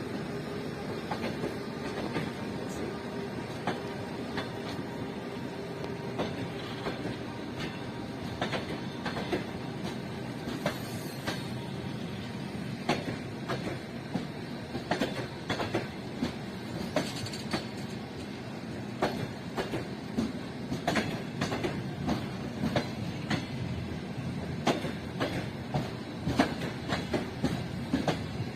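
Passenger train's carriages rolling past, wheels clacking over rail joints above a steady rolling rumble. The clacks come irregularly and grow louder and more frequent in the second half.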